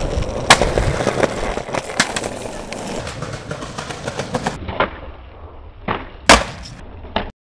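Skateboard wheels rolling over rough asphalt, with sharp clacks of the board popping and landing; the loudest slap of a landing comes about six seconds in.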